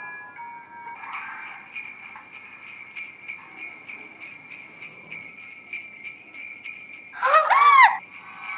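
Sleigh bells jingling steadily. Near the end, a short, loud sound effect sweeps up and then down in pitch over them.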